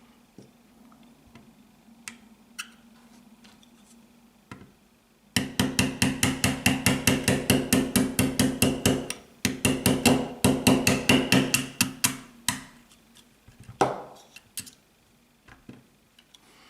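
Small hammer tapping a punch to drive the trigger pin out of a Smith & Wesson M&P pistol frame. After a few faint clicks, it strikes rapidly and evenly, about five taps a second with a brief metallic ring. There is a short pause partway through, and a few last scattered taps near the end.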